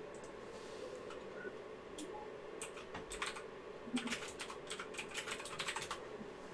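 Typing on a computer keyboard: a few scattered keystrokes, then a quick run of them in the second half, over a faint steady hum.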